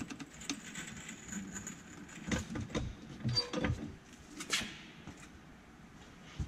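Irregular knocks, clicks and scraping from hand work on a Club Car golf cart's rear suspension during a bushing and shock replacement. The knocks come thickest in the middle of the stretch.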